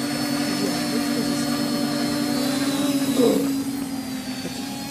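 Quadcopter's brushless motors and propellers hovering with a steady buzzing hum and a thin high motor whine above it, with a brief louder burst about three seconds in.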